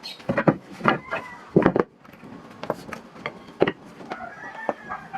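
A series of irregular wooden knocks and clunks, with some rubbing, as of wood pieces being handled and set down.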